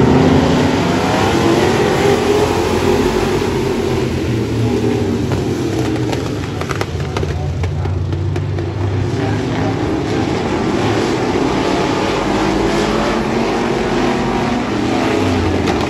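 A pack of vintage stock cars racing, several engines running hard together, their pitch rising and falling as the cars go through the turns.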